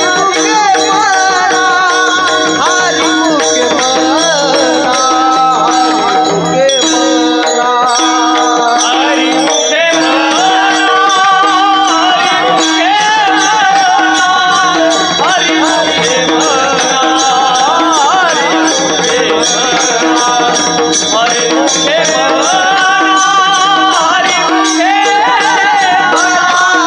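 Male voice singing a devotional song in a gliding, ornamented line, accompanied by mridang drumming over a steady held drone.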